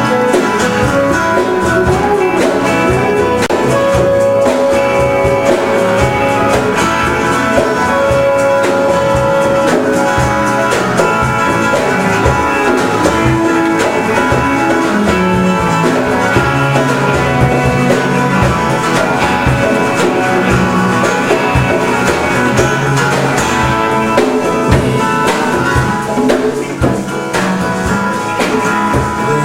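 Live band playing an instrumental passage: strummed and picked guitars over bass and a drum kit, with no singing.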